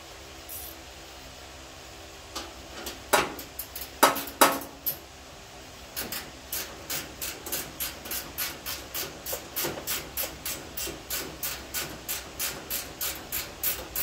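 A few sharp metal clanks, then a hand ratchet wrench clicking in a steady rhythm of about three strokes a second as the inner fender bolts are run in.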